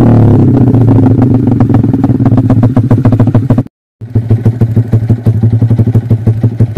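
Yamaha Jupiter MX single-cylinder four-stroke engine, bored up to 177cc and breathing through a short DST Racing silencer, settling from a rev down to a steady idle with a loud, evenly pulsing exhaust beat. The sound breaks off for a moment a little past halfway, then the idle carries on.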